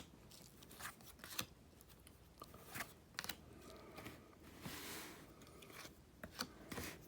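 Trading cards and their wrapping handled by hand: faint scattered clicks and taps, with a brief tearing rustle about halfway through.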